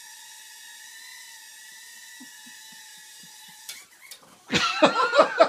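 Tiny quadcopter's motors whining at a steady high pitch, cutting out about three and a half seconds in. Near the end a person laughs loudly in quick, even pulses.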